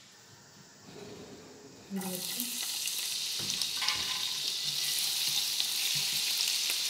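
Crumbled paneer frying in hot oil in a pan: sizzling that starts suddenly about two seconds in and holds steady, with a spatula scraping and clicking against the pan as it is stirred.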